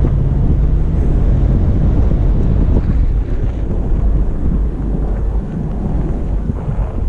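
Low, steady rumble of the Toyota FJ Cruiser on the move, heavily mixed with wind buffeting the microphone. A faint engine hum fades out about a second in.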